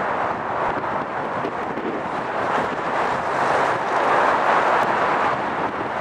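Jet aircraft engine noise: a steady rushing that grows a little louder about four seconds in.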